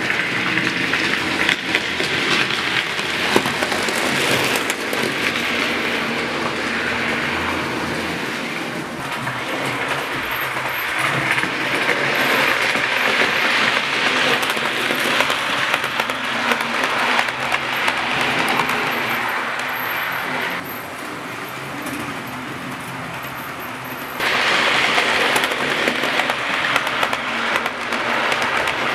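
00 gauge model trains running on the layout's track: a steady rattling of small wheels over the rails. It drops away suddenly about two-thirds of the way through and comes back loud a few seconds later, as a train runs close by.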